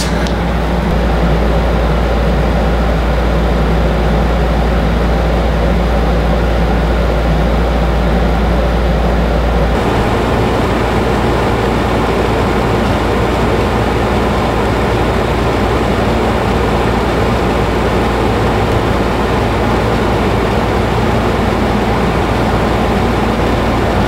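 Whynter 14,000 BTU dual-hose portable air conditioner running on its coldest setting with the compressor on: a steady drone with a deep hum under the fan noise. The sound shifts a little about ten seconds in, the deep hum easing slightly.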